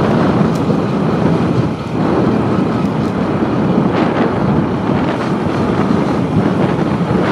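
Wind rushing over the microphone of a camera on a moving motorcycle, mixed with the bike's running noise, as a steady, loud rush with a brief dip about two seconds in.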